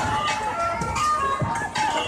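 Background music with voices mixed in.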